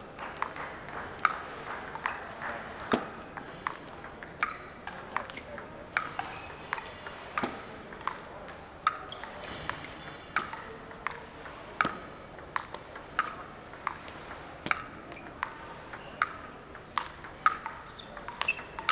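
A table tennis ball being rallied, struck by sandpaper-faced paddles and bouncing on the table: a long run of sharp, irregular ticks, roughly one or two a second. Voices chatter faintly in the hall behind.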